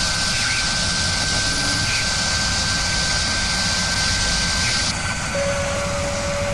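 Steady jet-like rushing noise with a thin, high whistling tone: the sound effect for a spinning drill spindle throwing chips. About five seconds in the rush and whistle drop away, leaving a steady lower hum.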